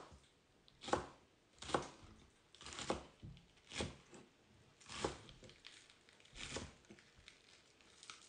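Chef's knife chopping spring onions on a wooden chopping board: slow, even chops, about one a second.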